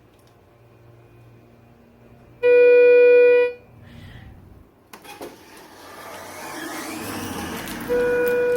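Elevator's electronic signal beep, a steady buzzy tone held for about a second. A whirring, rushing sound of the elevator doors and machinery builds after it. The same beep sounds again, shorter and quieter, near the end.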